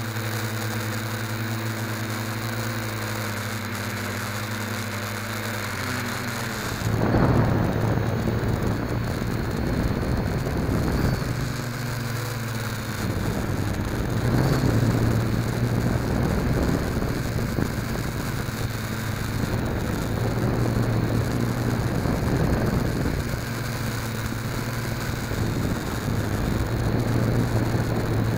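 Small quadcopter's electric motors and propellers buzzing, heard from the onboard camera, the pitch stepping up and down with the throttle. From about seven seconds in it gets louder and is mixed with a rush of air as the quad speeds up.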